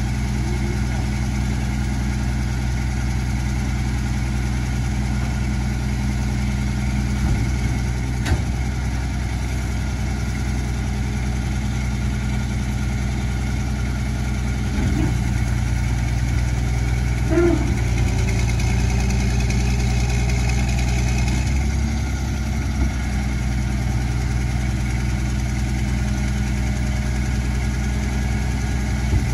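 Mack MR garbage truck engine idling steadily while the McNeilus rear loader's hydraulic packer cycles. Between about 15 and 22 seconds in the truck gets louder, with a higher whine as the packer runs. A sharp knock comes about 8 seconds in, and a short creak near 17 seconds.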